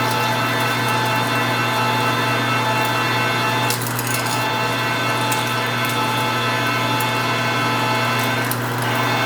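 Precision Matthews 1640 metal lathe running steadily under load while a large twist drill bores into cold rolled steel with coolant flowing onto the cut. It makes an even motor and gear hum with scattered faint ticks.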